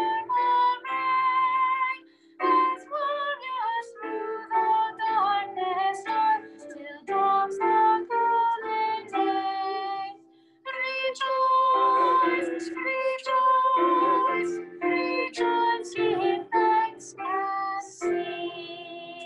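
A woman singing a hymn with keyboard accompaniment, in short phrases. It ends on a long held chord that fades out.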